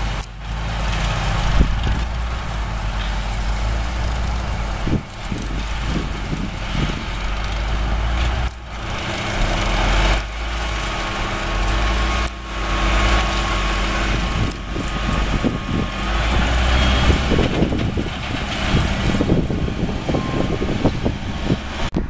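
Diesel engines of a Case IH tractor pulling a sugar beet harvester, and of the beet trucks alongside, running in a steady low rumble, with a thin high whine through much of it.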